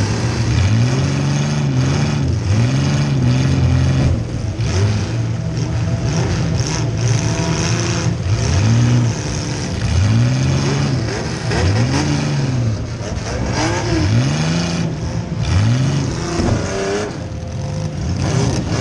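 Compact car's engine revving up and falling back over and over, every second or two, heard from inside the car, with scattered knocks and clatter.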